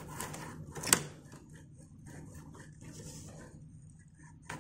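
Plastic laptop casing being handled and prised at, rubbing and scraping, with one sharp plastic click about a second in, then faint scuffs and a short click near the end.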